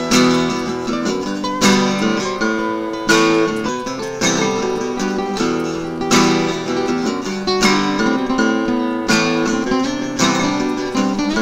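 Background music: an acoustic guitar strumming chords, with a fresh strum about every one and a half seconds.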